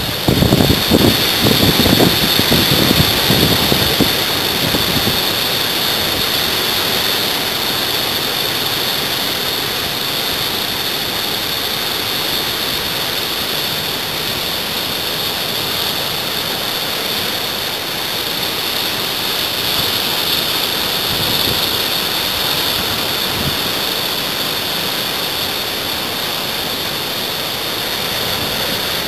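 Steady rushing of ocean surf breaking and washing toward the shore, with wind buffeting the microphone for the first few seconds.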